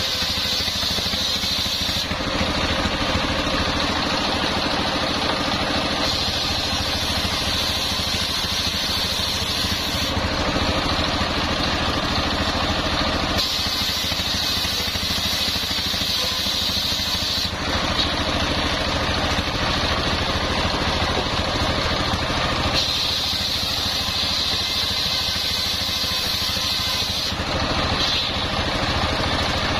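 Stationary diesel engine running steadily, belt-driving a homemade table circular saw that is ripping coconut-palm timber into beams. The saw's cutting noise changes in blocks every few seconds as each pass through the blade starts and ends.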